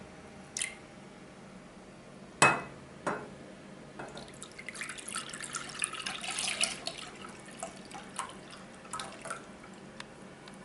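A pot or bowl knocks sharply on the counter a few times, the loudest about two seconds in. Then comes a few seconds of wet trickling and splashing as warm custard mixture is poured from a saucepan into a bowl, followed by scattered small clinks.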